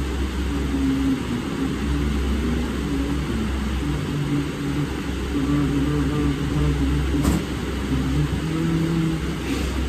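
A steady low rumble with a wavering hum running over it, like a motor running. There are a couple of faint crackles near the end.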